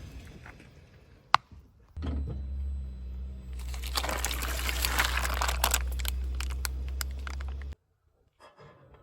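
A car's tyre rolling over and crushing objects: crackling and crunching over a steady low rumble of the car, cutting off suddenly near the end. A single sharp click comes just before.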